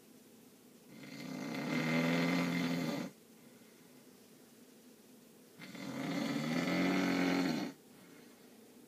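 A person snoring: two long snores of about two seconds each, a second in and again near the six-second mark. Each has a low, pitched rattle that swells and then cuts off sharply, with quiet breathing gaps between.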